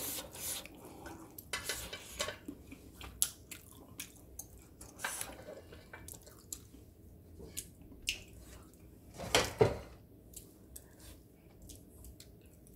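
Sparse light clicks and clinks of kitchenware being handled, as a metal wire rack of tempura is slid across a frying pan, with a louder knock about nine and a half seconds in.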